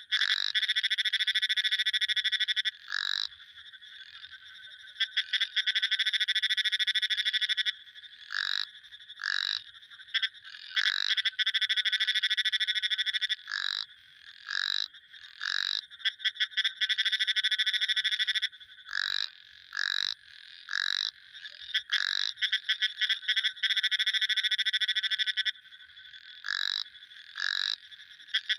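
Frogs calling: long, rapidly pulsed trills lasting two to three seconds each, repeated about five times, with short separate calls that drop in pitch in the gaps between them.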